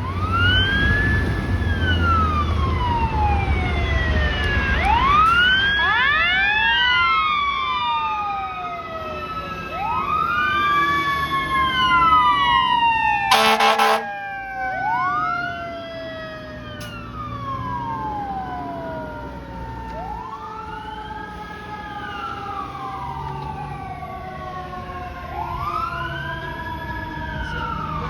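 Several fire truck sirens wailing at once, their rising and falling sweeps overlapping, with the low rumble of the truck at the start. About halfway through, a brief air horn blast cuts across them.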